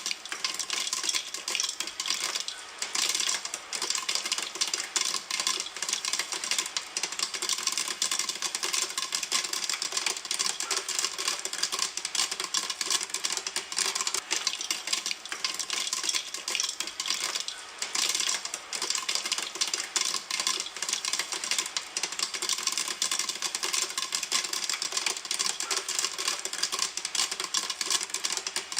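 Popcorn kernels popping in a pan: a dense, continuous stream of quick pops with no let-up.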